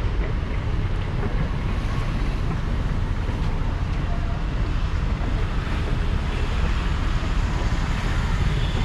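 Wind buffeting the microphone: a steady, irregular low rumble with a lighter hiss above it.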